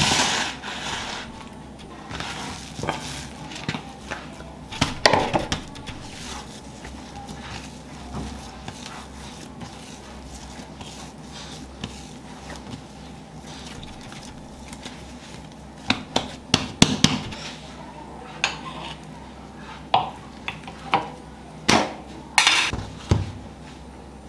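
A plastic bowl knocked down onto a stone countertop, then hands kneading and slapping dough on the counter: scattered knocks and thumps, with a burst of them around the middle and several more near the end, over a steady low hum.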